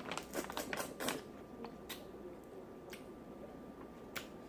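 Crawfish shells cracking and crackling as they are broken open and peeled by hand: a quick run of sharp cracks in the first second, then a few single clicks.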